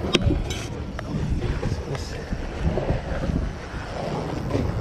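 Wind buffeting the microphone, a steady low rumble, with a few sharp clicks: one just after the start and others about one and two seconds in.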